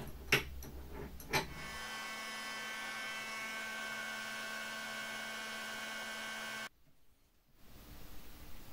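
A handheld electric heat gun runs steadily, its fan giving a whine of several steady tones as it blows hot air onto a plastic rod to soften it. A couple of clicks come before it starts, and it cuts off abruptly near the end, leaving faint handling noises.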